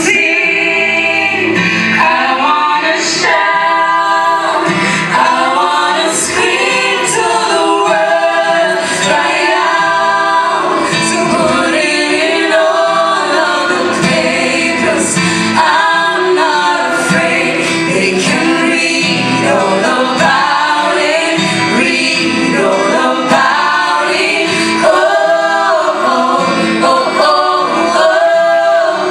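A small gospel vocal group singing live in close harmony, mostly women's voices, carried on without a break.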